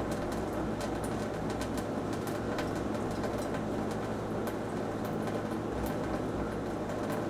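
Thin stream of tap water from a kitchen faucet trickling steadily into a stainless steel sink, with scattered light ticks and splashes as a cat's paw dips into the stream. A low steady hum runs underneath.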